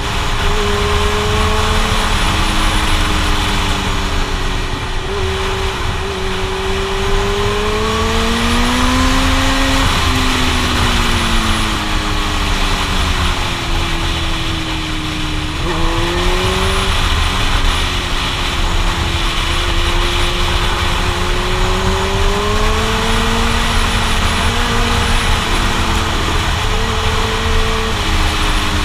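Suzuki GSX-R1000 inline-four engine pulling through corners, its pitch rising and falling with the throttle, with sudden gear-change jumps about ten and sixteen seconds in. A steady roar of wind on the helmet microphone runs underneath.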